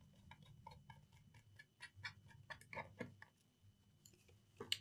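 Faint, irregular small clicks and ticks of a screwdriver and the plastic bottom cover of a laptop as the last cover screw is undone and the cover worked loose, stopping about three seconds in.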